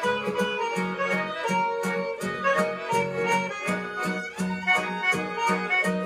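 Background music with a steady beat under a melody.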